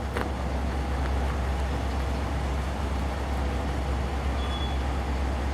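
Norfolk Southern diesel freight train with empty cars going by, a steady low rumble with a sharp click just after the start.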